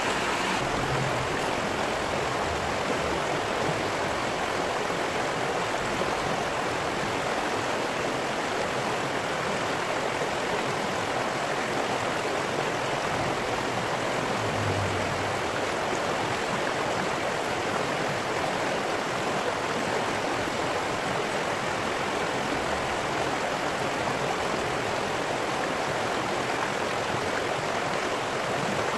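Shallow stream rushing over rocks: a steady, even rush of moving water.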